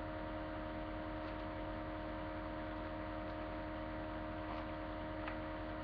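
Steady electrical mains hum with hiss, picked up by a webcam microphone, with a couple of faint clicks in the second half.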